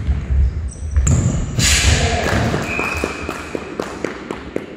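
Futsal play echoing in a sports hall: the ball thuds and feet strike the wooden floor, with a few short high squeaks. There is a loud crash about a second and a half in, and a quick run of sharp thuds near the end.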